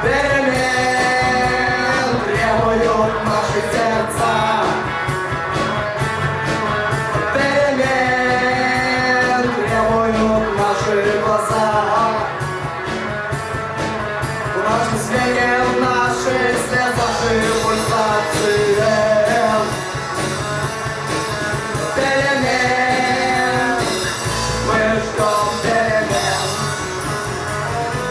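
Rock band music: electric guitar lines over bass and drums in a steady beat.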